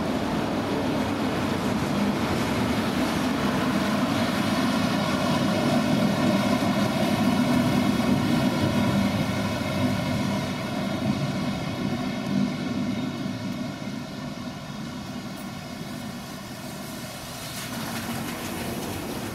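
DB Class 114 electric locomotive pushing a double-deck regional train as it pulls away: the rumble of the train running with a steady whine of several tones from the locomotive. It is loudest about eight seconds in as the locomotive passes and fades as the train draws away.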